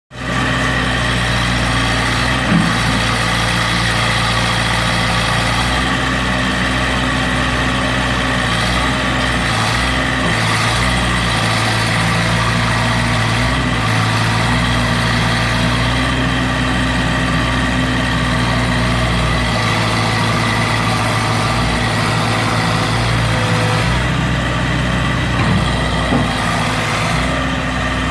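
Heavy vehicle engine running steadily at idle, its pitch holding level throughout.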